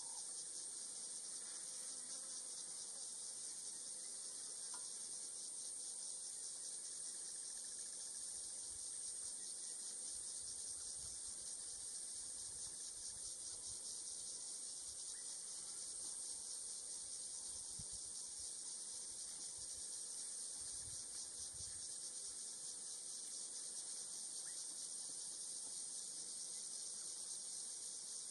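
Steady, high-pitched drone of an insect chorus with a fine rapid pulse, running without a break.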